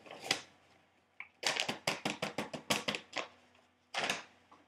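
A fast run of light clicks and rustles, lasting about a second and a half, with a single louder tap just after the start and another near the end, as the rest of the flour is shaken from its bag into a glass mixing bowl of cake batter.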